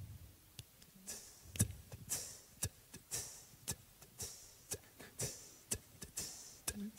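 Fairly quiet steady beat made by an a cappella group, with sharp clicks alternating with short hissing 'tss' sounds, about two a second, starting about a second in.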